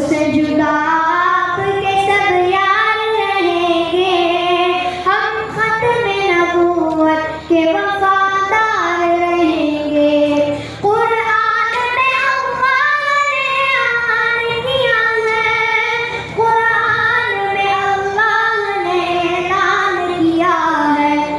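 A boy singing devotional verse solo into a microphone, one melodic voice with long held and wavering notes, pausing briefly for breath a few times.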